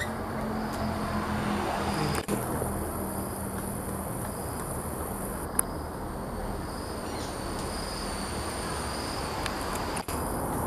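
Forest ambience of insects buzzing in a steady high tone over a low steady hum, with one brief click about five and a half seconds in.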